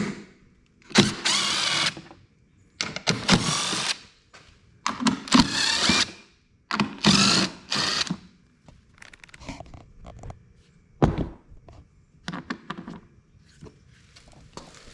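Power drill spinning in four short runs of about a second each, backing out fasteners. The motor whine wavers in pitch within each run. Clicks and a thump of handled parts follow.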